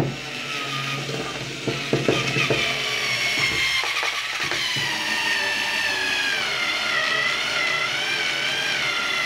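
Multilaser Home 4.8 V cordless screwdriver driving a long screw into a wooden block: its motor and gearbox whine starts suddenly, with a few rattling knocks in the first seconds. The whine's pitch sags and wavers in the second half as the screw goes deeper and the load builds, then it stops.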